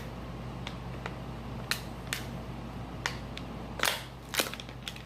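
A handful of short, sharp clicks and crackles at irregular spacing over a steady low hum. The loudest is a brief cluster of crackles a little under four seconds in.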